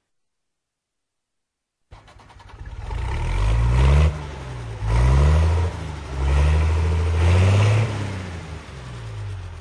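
A vehicle engine starts up abruptly and accelerates, its pitch climbing and dropping back about four times, then fades toward the end.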